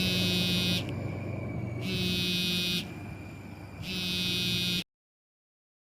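Electronic buzzer-like tone sounding three times, each about a second long with a gap of about a second between, over a steady hiss; it cuts off abruptly near the end.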